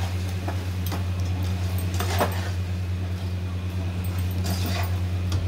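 Spatula stirring and scraping chicken and spices in a nonstick pot while the masala fries, with a few short scrapes and clicks. Under it runs a steady low hum.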